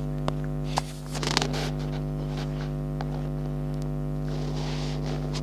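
Steady electrical mains hum with a buzz of many evenly spaced overtones, with a few faint clicks.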